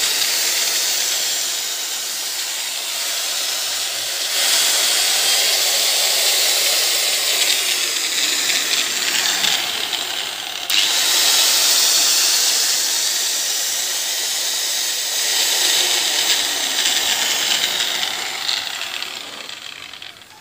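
Angle grinder running under power as a test of its newly fitted switch. It is a loud steady motor-and-disc noise that steps up in loudness about four and about eleven seconds in, then dies away near the end.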